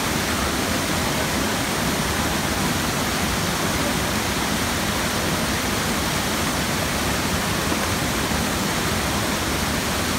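Waterfall pouring down a sloping rock face into a plunge pool: a loud, steady rush of water.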